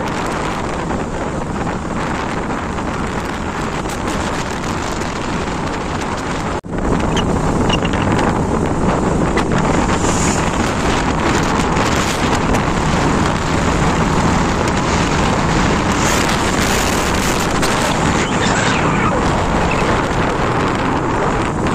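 Wind rushing over the microphone of a rider on a moving motorcycle, with engine and road noise underneath. The sound drops out for an instant about six and a half seconds in and comes back a little louder.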